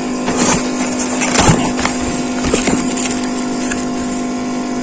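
Cardboard box being opened and its packaging handled: rustling and scraping with a few sharp crackles in the first three seconds, then quieter handling, over a steady background hum.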